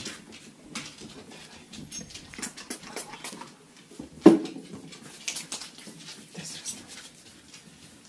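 A dog's claws clicking and pattering on a hard floor as it moves about, with one louder thump about four seconds in.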